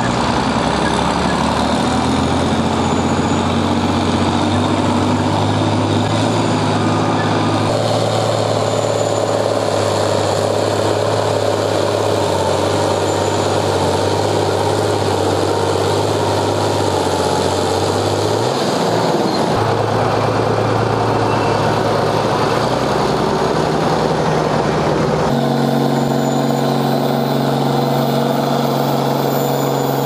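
Diesel farm tractor engines running, at first hard under load while pulling a weight sled. The sound changes abruptly several times, with a short rise in engine pitch about two-thirds of the way through.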